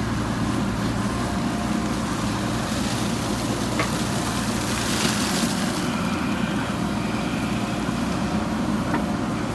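JCB backhoe loader's diesel engine running steadily while it digs. There is a short burst of hiss about five seconds in and a couple of faint clicks.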